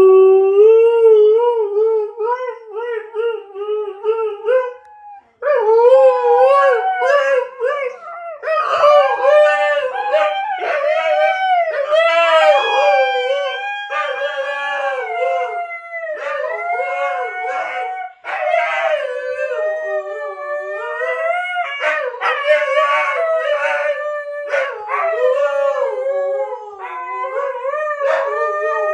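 Siberian huskies howling: long, wavering howls, one voice for the first five seconds, then after a brief break several howls overlapping to the end.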